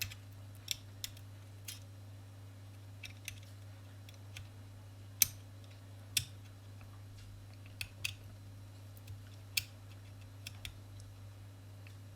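Light, irregular clicks and taps of the smart plug's plastic case being handled and picked at, one sharper click about five seconds in, over a steady low hum.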